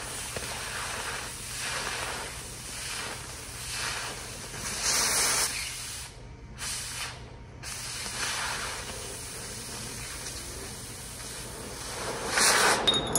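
Oxy-acetylene cutting torch hissing as its cutting-oxygen jet burns through steel plate. The hiss swells and fades irregularly, breaks off briefly twice near the middle and is loudest near the end.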